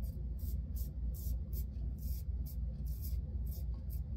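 Timeless 0.68 titanium safety razor scraping through lathered stubble in short, quick strokes, a crisp scratch about three times a second, over a steady low hum.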